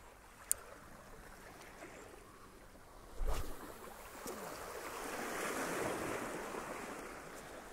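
Small waves from a calm sea washing against rocks, swelling to a louder wash about five to six seconds in. A short dull thump about three seconds in, louder than the water.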